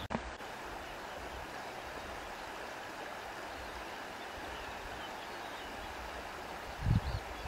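Steady rush of flowing water, with a brief low rumble near the end.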